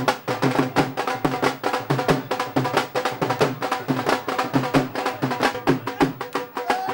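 Fast Punjabi bhangra music driven by a steady, rapid drumbeat, with a melody over it; a single note is held near the end.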